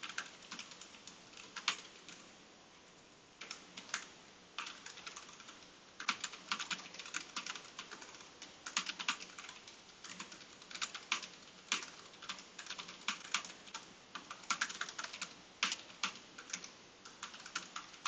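Typing on a Keychron K3 ultra-slim low-profile mechanical keyboard with brown tactile switches: quick runs of key clicks, with a short pause about two seconds in.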